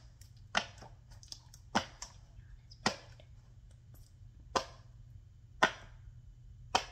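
Silicone push-pop fidget toy (pop-it) being tested, its bubbles pressed through one at a time: single short pops about a second apart.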